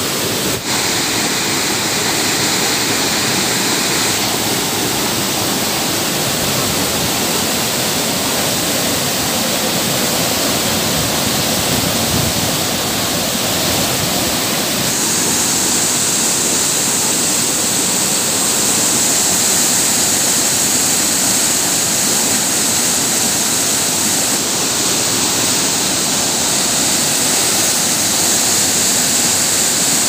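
Waterfall plunging into a rock pool: a loud, steady rush of falling water, its tone shifting slightly a few times.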